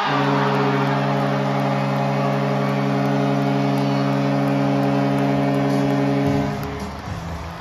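Hockey arena goal horn sounding one long steady chord over a cheering crowd, signalling a home-team goal; it cuts off about six seconds in.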